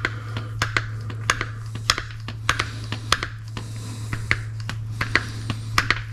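Hand grease gun being worked on the grease fitting of a newly installed outer tie rod end, with irregular sharp clicks and taps of metal parts, over a steady low hum.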